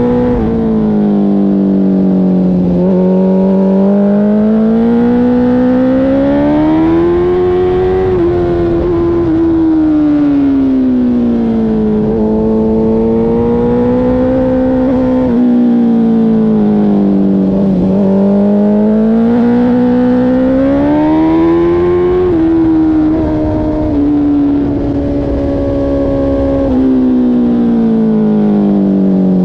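Sport motorcycle engine heard onboard at speed, its note rising and falling slowly several times as the throttle is opened and eased. There are a few sudden small steps in pitch, and a low rush of wind runs underneath.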